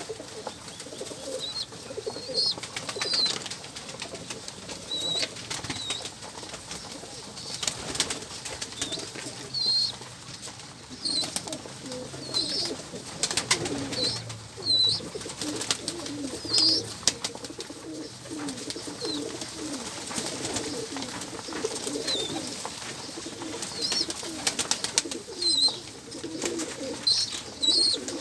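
A crowded flock of domestic pigeons cooing continuously, with frequent wing flaps and scuffling as the birds jostle together.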